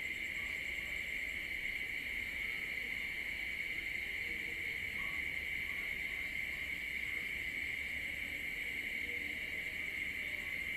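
Steady chorus of night insects such as crickets, a continuous high-pitched trill with no breaks.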